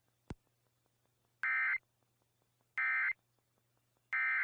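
Emergency Alert System end-of-message signal: three short bursts of SAME digital data tones, about a third of a second each and about a second and a half apart, marking the end of the alert. A single click comes just before them.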